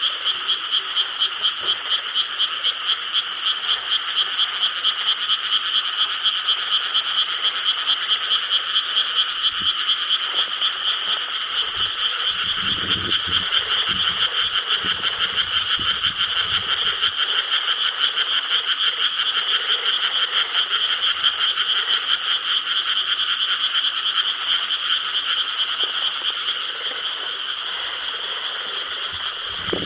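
Frogs in a rice paddy croaking together in a dense chorus, pulsing at about three beats a second.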